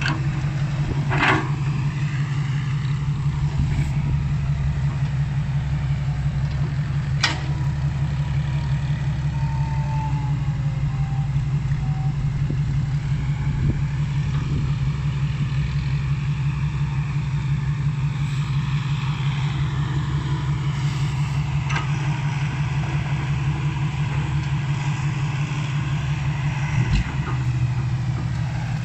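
Komatsu tracked excavator's diesel engine running steadily while digging, with a couple of sharp clanks, and the engine note shifting near the end.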